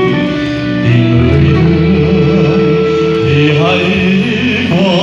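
Instrumental backing music for a sung Vietnamese ballad, played loud through a microphone PA system, with long held notes; a man's singing voice with vibrato comes in over it about three seconds in.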